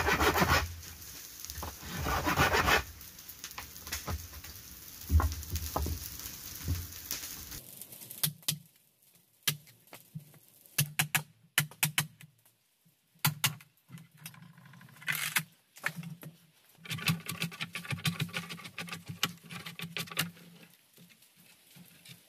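Green bamboo being cut and split by hand: scraping saw strokes at first, then, from about a third of the way in, a run of sharp taps and cracks as a machete blade is worked along the pole to split off a slat.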